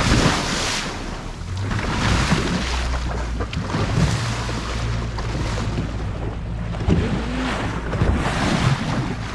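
Boat underway at sea: water rushing and splashing along the hull and wind buffeting the microphone, over a steady low engine hum that sets in about a second and a half in. The rush swells at the start and again near the end.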